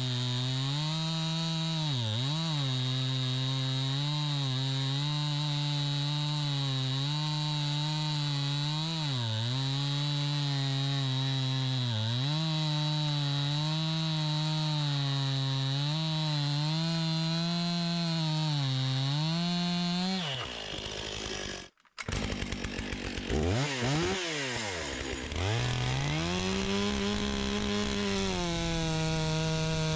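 Stihl MS 261 chainsaw cutting a round off a log at full throttle, its engine speed dipping briefly several times under load, then winding down about 20 seconds in. After a break, the bigger Stihl MS 661 with its long bar is revved up and down twice and then held at a steady high speed.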